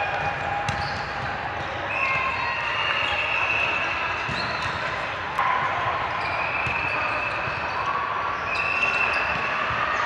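Volleyball play on a gym court: sneakers squeaking on the floor in several long, steady squeals over general hubbub, with one sharp smack of the ball about five seconds in.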